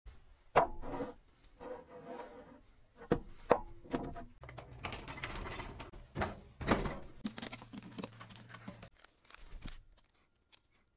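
Workshop handling noises: a run of sharp knocks and thuds with scraping and rattling between them, and a low steady hum through the middle few seconds.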